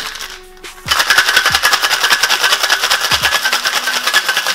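Ice rattling rapidly inside a metal cocktail shaker during a hard wet shake, starting about a second in and keeping up a fast, even clatter.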